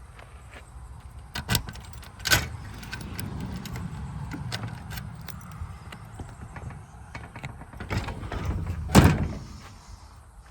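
Several sharp knocks and clatters, the loudest about nine seconds in, over a low steady rumble.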